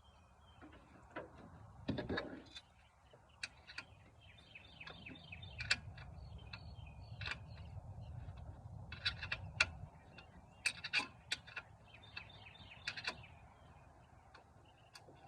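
Hand tools clicking and clinking on metal under the truck's hood in scattered sharp ticks, with short chirps higher up and a low rumble in the middle.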